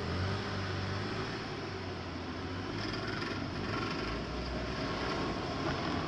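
Cars at a railway level crossing idling and then moving off across the tracks: a steady low engine hum with road-traffic noise.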